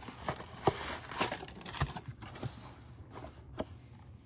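Baseball trading cards and card packs being handled: a string of short rustling swishes and light clicks.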